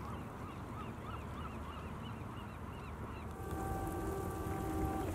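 A bird gives a quick series of short rising-and-falling calls, about three a second, over a low rush of wind and water. A little past halfway the calls stop and a steady pitched tone with a lower hum takes over for a second or two.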